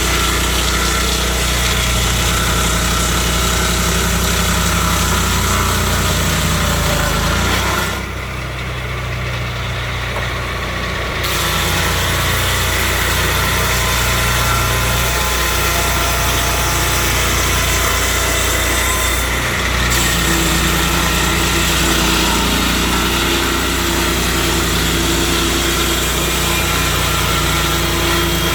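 Petrol engine of a portable swingblade sawmill running steadily. Around eight seconds in, the high end of the sound drops away for about three seconds, then comes back.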